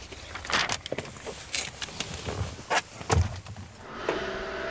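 Knocks and clicks of a man getting into a car, then a car door shutting with a deep thump a little after three seconds in. Soft background music comes in near the end.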